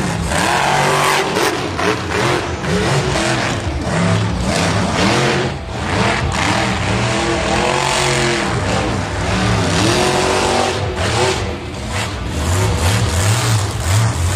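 Monster truck's supercharged V8 engine revving up and down again and again, its pitch rising and falling every second or two.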